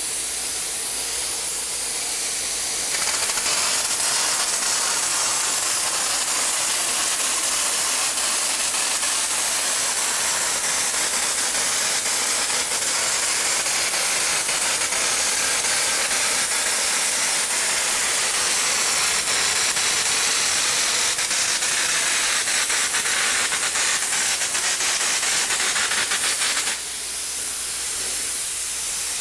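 Compressed air hissing steadily through a wallboard texture hopper gun as it sprays thin drywall mud for an orange-peel finish. The hiss gets louder about three seconds in and eases back near the end.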